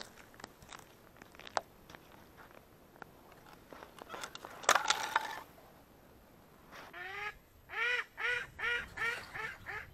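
Sharp clicks and crackles, then a loud crunching splash of wet, slushy ice at a fishing hole about halfway through. From about two thirds of the way in, a duck quacks in a quick series of short calls, about three a second.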